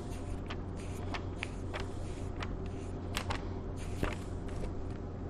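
Paper pages of a Quran being leafed through: soft rustles and several short, crisp page clicks over a steady low hum.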